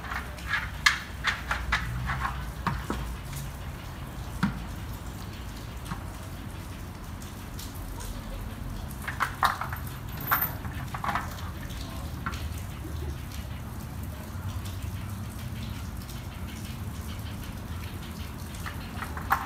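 Scattered clicks and knocks from bears handling hard food feeders, in bursts about a second in, around the middle and once near the end, over a low steady background rumble.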